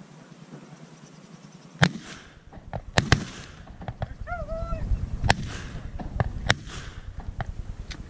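A volley of shotgun blasts from several hunters firing at ducks: about five loud shots over some five seconds with fainter shots between, each echoing briefly. A short duck-like call sounds in the middle of the volley.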